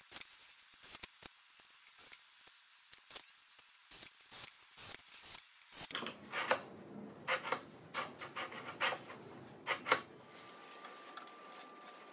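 Irregular sharp clicks, taps and small rattles of metal parts and hand tools being handled against the wooden frame of a CNC router under assembly. The clicks grow denser and fuller from about halfway, and a faint steady high tone comes in near the end.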